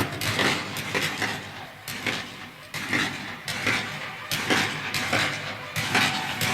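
Nineteenth-century battle ambience: scattered gunfire, sharp shots cracking irregularly several times a second over a continuous din.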